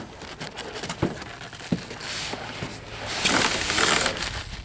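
A new radiator being slid out of its cardboard box, the cardboard and packing rustling and scraping, with a few sharp knocks in the first two seconds and the loudest scraping about three seconds in.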